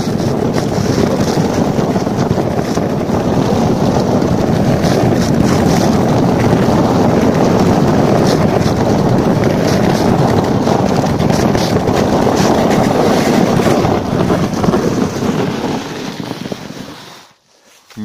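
A sled sliding down a packed snow trail: a steady scraping hiss of the sled on the snow, mixed with wind rushing over the microphone. It fades as the sled slows and goes quiet when it stops, about a second before the end.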